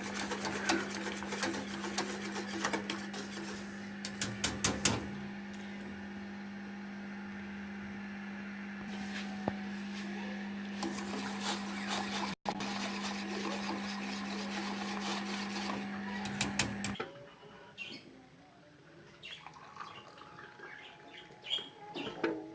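Whisk clicking and scraping in a saucepan, beating an egg-and-milk mixture being kept moving over a low flame, with a steady low hum. Clicks are densest in the first few seconds; the hum stops about seventeen seconds in, leaving only light scattered clicks.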